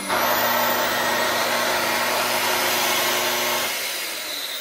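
Festool TS75 plunge track saw switched on and running free, not cutting. It starts abruptly, its whine rises a little as the speed comes up, then the trigger is released about three and a half seconds in and the motor begins to spin down. It has a rough, grinding note that the owner puts down to the saw's motor speed regulation.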